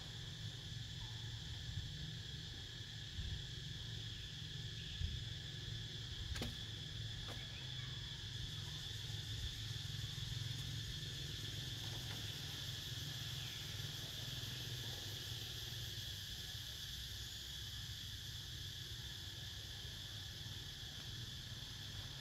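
Steady chorus of insects, a continuous high drone, over a low rumble. Two faint clicks about six and seven seconds in.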